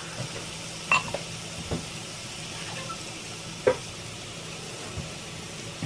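Sliced mushrooms and minced garlic sizzling steadily in hot sesame oil in a cast-iron skillet, with a few light clicks.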